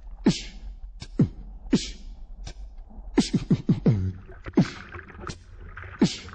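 Beatboxing: a rhythm of deep kick sounds that drop quickly in pitch, traded with sharp hissing snare sounds, with a quick triple kick near the middle.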